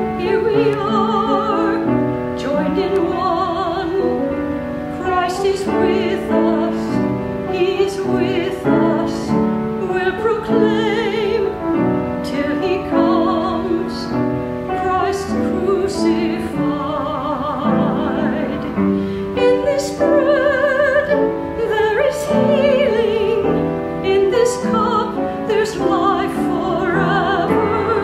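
A hymn sung with strong vibrato over piano accompaniment.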